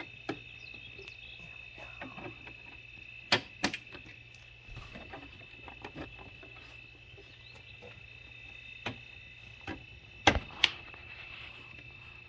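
Scattered sharp clicks and knocks from plastic push-pin clips and parts being handled and pressed in while an undershroud is fitted. The loudest come as a pair about three and a half seconds in and another pair near the end, over a steady high-pitched hum.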